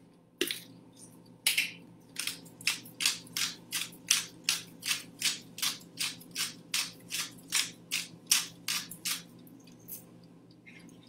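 Hand salt grinder being twisted to grind coarse salt, a quick run of short grinding strokes about three a second. It starts about a second and a half in and stops near the end.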